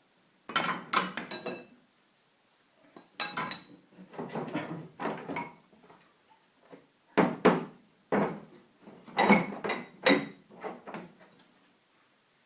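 Metal lathe accessories and tools knocking and clinking together as they are handled and set down while a box is rummaged through, in four clusters of knocks, some with a short metallic ring.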